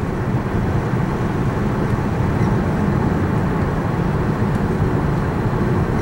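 Steady cabin noise of a 2002 Pontiac Grand Am cruising at highway speed: an even low hum of tyres on the road and the engine. It has no breaks or sudden sounds.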